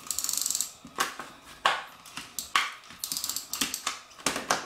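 Adhesive tape runner rolled along a glossy paper bag, giving two quick trains of ratcheting clicks, near the start and about three seconds in, with a few sharp paper snaps as the paper is pressed and handled between them.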